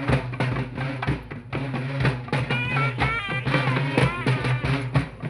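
Music with fast, dense drumming and a wavering high melody line.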